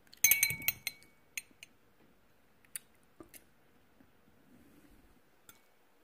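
Metal fork clinking against a ceramic plate: a quick cluster of clinks with a short ring from the plate about a quarter second in, then a few scattered single taps.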